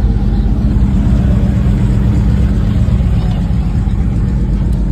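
Pickup truck engine running: a loud, steady, low drone.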